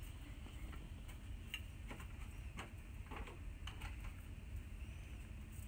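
Faint, unevenly spaced light clicks and taps, roughly two a second, over a low steady rumble.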